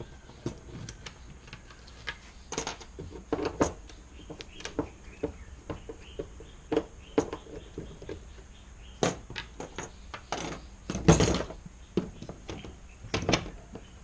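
Irregular clicks and knocks of hands and a tool working at the back of a kayak's rudder fitting as it is being undone, with a louder cluster of knocks near the end.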